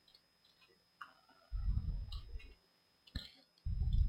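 Computer mouse clicking a few times, the sharpest click about three seconds in, between two stretches of low muffled rumble.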